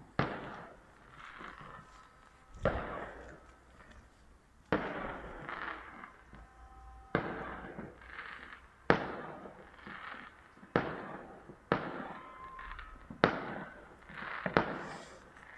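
Fireworks bursting: about ten sharp bangs spaced one to two seconds apart, each followed by a long echoing tail.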